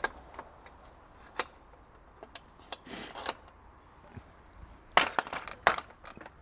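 Metal-on-metal clinks and knocks as the old headset cup is knocked out of a mountain bike's head tube: a few scattered taps, then a quick cluster of sharper knocks about five seconds in.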